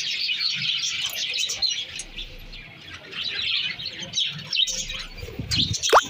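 A flock of budgerigars chattering and chirping continuously, many short chirps overlapping. Just before the end comes a short, loud rising squeak with a low rumble.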